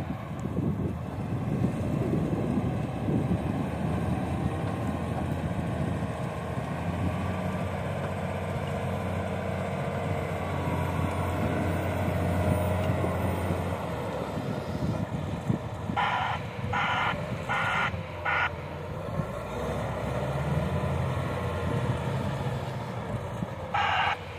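Komatsu WA470-8 wheel loader's diesel engine working steadily as the loader digs into the pile and carries its bucket. A reversing alarm beeps four times, about once every three-quarters of a second, about two-thirds of the way in, and starts beeping again at the very end.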